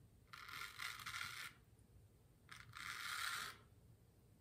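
Weck Sexto razor's blade scraping through lathered stubble: two strokes, each about a second long, with a pause between.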